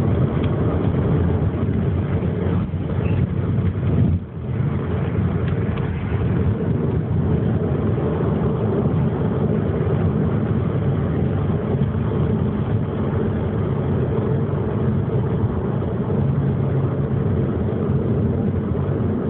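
Sports car's engine and road noise heard inside the cabin while driving hard at speed, steady and loud with a brief dip in level about four seconds in.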